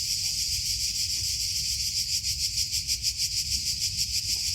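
A chorus of cicadas making a loud, continuous shrill buzz that pulses rapidly, with a low rumble underneath.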